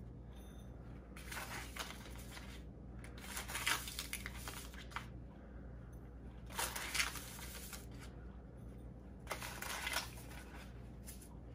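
A paper packet of sausage cure rustling and a metal teaspoon scooping, as spoonfuls of the cure are tipped into a glass bowl: four or five short, scratchy bursts over a steady low hum.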